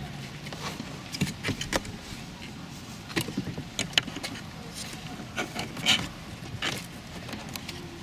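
Plastic clips of a Toyota RAV4's door-armrest window-switch panel popping loose as it is pried up with a plastic trim tool: a run of sharp clicks and snaps with plastic scraping and rattling between them, the loudest snap about four seconds in.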